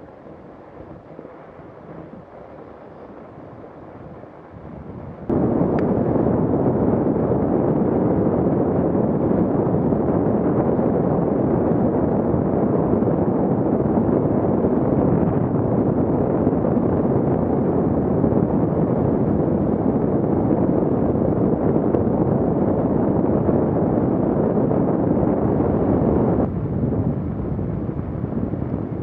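Wind rushing over a Garmin VIRB action camera's microphone as a fat bike rolls over snow. It is quieter for about the first five seconds, then jumps suddenly to a loud, steady rush at riding speed, easing slightly near the end.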